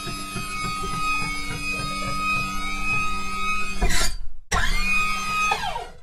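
Designed sci-fi mech sound effects: a steady mechanical whine over a low throb pulsing about four times a second, ending in a loud burst about four seconds in. After a brief gap a second whine rises, holds and falls away near the end.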